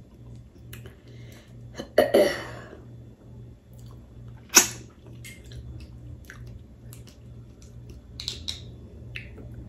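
Crab legs being cracked and peeled by hand and eaten close to the microphone: scattered shell snaps and clicks with chewing, the sharpest crack about four and a half seconds in. A steady low hum runs underneath.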